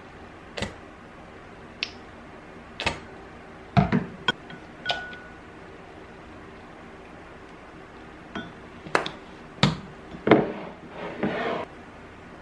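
Dishes and cutlery clinking and knocking: a dozen or so separate sharp clinks and knocks, some with a short ringing tone, and a brief scraping sound near the end.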